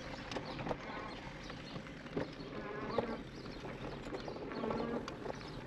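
E-bike riding over a dirt forest trail, with scattered knocks and rattles from the bike jolting over bumps. A short hum comes and goes every couple of seconds.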